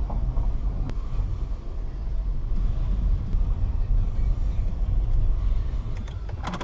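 Car cabin road noise while driving: a steady low rumble of engine and tyres, easing off near the end.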